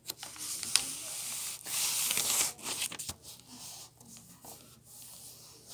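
A sheet of paper being folded in half and creased by hand: rustling and crinkling with sharp crackles, loudest in the first few seconds, then softer rubbing.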